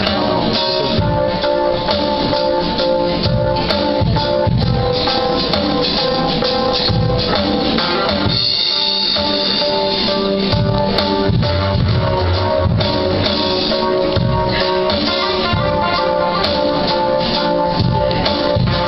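Live pop band playing an instrumental passage with drums, tambourine-like percussion, guitar and held keyboard-like notes; the bass and drums drop out briefly about halfway through before the band comes back in.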